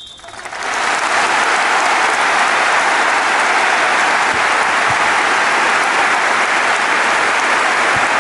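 A large arena crowd breaking into applause: it swells over the first second, then stays steady and loud.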